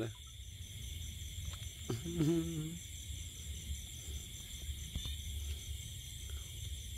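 Night chorus of crickets and other insects, a steady high pulsing trill over a low rumble. A person makes one short voiced sound about two seconds in.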